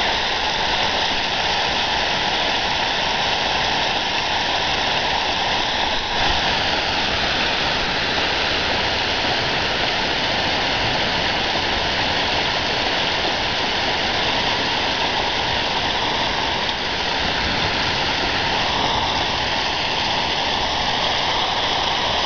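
Steady rush of floodwater and heavy rain: a swollen creek and storm runoff pouring through the yard.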